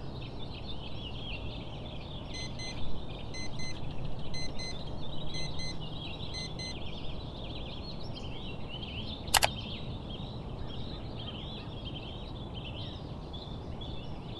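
Birds chirping and chattering over a steady low outdoor rumble. A faint electronic beep repeats about once a second, five times, from about two to six seconds in, and a single sharp click comes a little past halfway.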